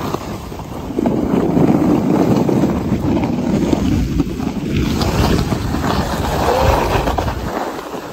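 Plastic bob sled sliding fast down a packed snow track: a steady scraping rumble of the sled on the snow, mixed with wind buffeting the microphone. It gets louder about a second in and eases off near the end.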